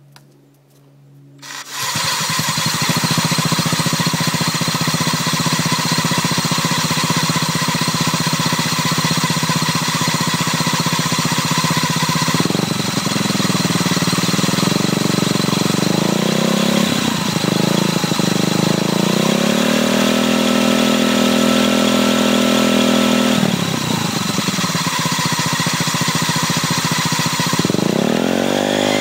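Honda Ruckus scooter's 49cc four-stroke single starting about a second and a half in, then running and being revved up and down through its belt-drive variator, with an abnormal noise that the owner puts down to the variator.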